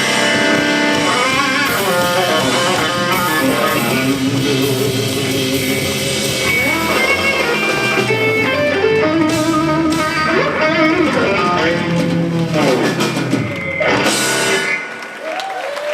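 Live blues trio of electric guitar, bass guitar and drum kit playing the instrumental close of a slow blues, with no singing. It ends on a loud full-band hit about fourteen seconds in, and the level drops after that.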